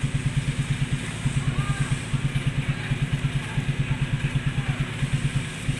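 Off-road 4x4's engine idling with a steady, fast, low throb that dips briefly now and then.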